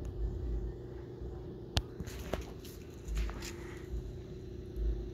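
Phone microphone handling noise: low rumbling thumps and one sharp click as the phone is moved and turned, over a faint steady hum.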